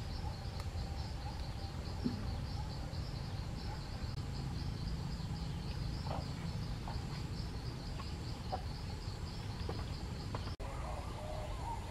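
Insects chirping in a fast, even pulse over a low steady rumble of outdoor background noise; the sound drops out for an instant near the end.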